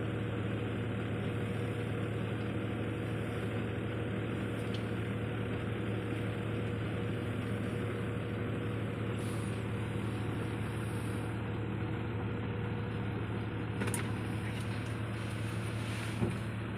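Steady low hum of a car's engine heard from inside the cabin, under an even hiss of rain on the car.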